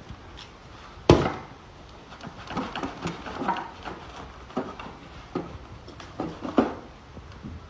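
Knife chopping into a whole jackfruit on a wooden block: one sharp knock about a second in, then a run of smaller knocks and cuts.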